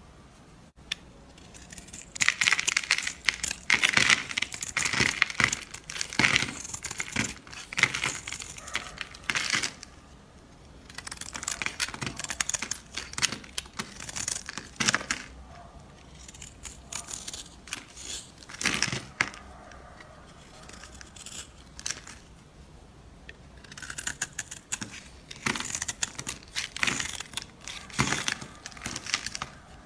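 Slime being squeezed and stretched by hand, giving clusters of wet crackling and popping clicks that come and go in bursts of a few seconds.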